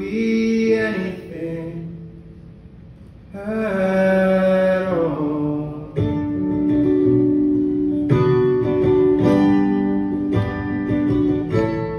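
Acoustic guitar played live as a solo accompaniment, with a voice holding long notes over it in the first few seconds. From about six seconds in the guitar strums chords in a steady rhythm on its own.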